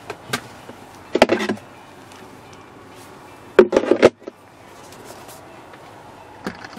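Clicks and knocks from a car's centre console armrest storage box, its lid and latch being worked and the inside handled, in three short bursts: about a second in, at about three and a half seconds, and near the end.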